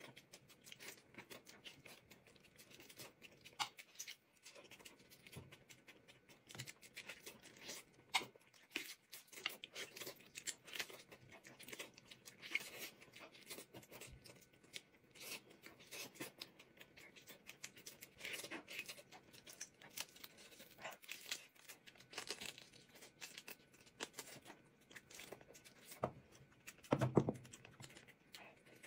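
Close-up eating sounds of a pork trotter: meat tearing, chewing and many small wet clicks and smacks, with a short hum of voice about 27 seconds in.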